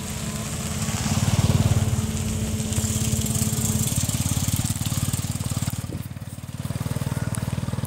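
Small motorbike engine running close by with an even, rapid chugging beat, loudest a second or two in. A steady hum over it stops about four seconds in.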